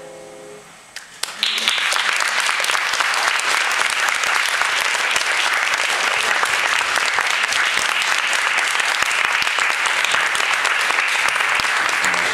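Final chord of a piano duet dying away, then audience applause breaking out about a second in and running on as steady, dense clapping.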